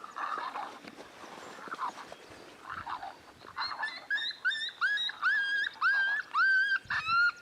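Coyote yelps from a 'den raid' call played on a predator caller. About halfway in a fast, regular run of high, rising yelps begins, about two a second, getting louder toward the end.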